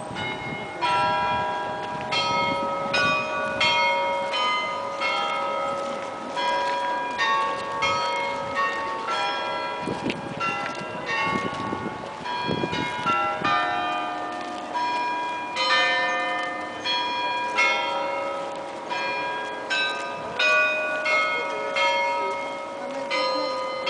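Bells of the Peter and Paul Cathedral bell tower ringing: a continuous peal of several bells of different pitches struck one after another in quick succession, each tone ringing on under the next.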